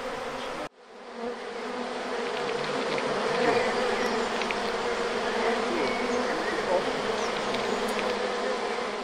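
Honeybee swarm buzzing: a dense, steady hum of many bees in the air around a newly hived swarm. It cuts off abruptly just under a second in, then swells back and holds.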